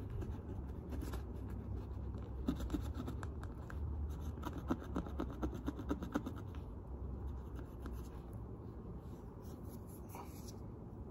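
Cotton swab scrubbing tarnish off a handbag's metal hardware: a quick run of small scratchy rubbing strokes that dies down about two thirds of the way through.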